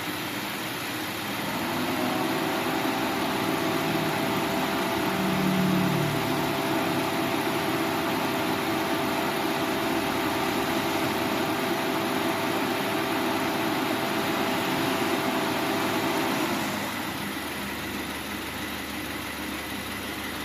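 2013 Subaru Forester 2.0T's turbocharged flat-four idling with the air conditioning running. A steady hum comes in about a second and a half in and cuts out about sixteen seconds in.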